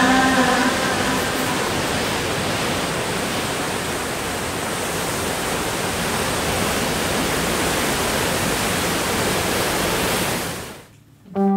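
Steady, even rushing noise with no pitch to it, ending abruptly near the end; the last of the background music fades out at the very start.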